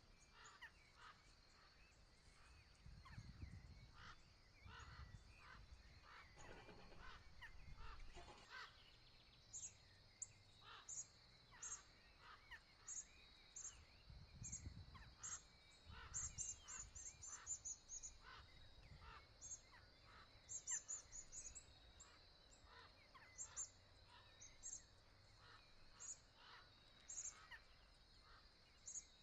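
Faint outdoor bird calls: short, high chirps repeating many times, some in quick runs, with other lower calls among them.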